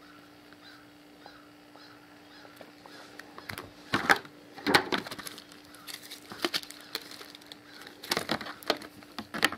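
Phone box packaging being handled: the white box tray and a clear plastic bag of accessories rustle and crackle in several short sharp spells from about three and a half seconds in. A faint steady hum lies underneath.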